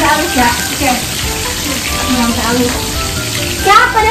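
Fish frying in hot oil in a wok, a steady sizzle, with a voice over it.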